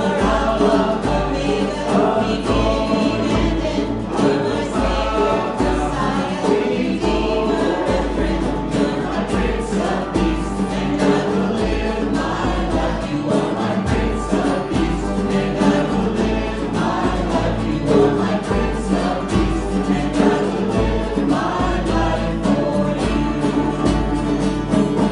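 Church worship music: many voices singing a worship song together with a band over a steady drum beat.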